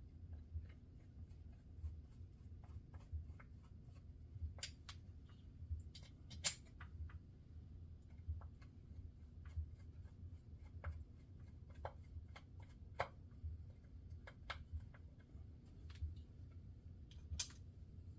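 Small screwdriver driving screws into the side plate of a Penn 85 fishing reel: faint, irregular clicks and scrapes of metal on metal, a few of them sharper, over a steady low hum.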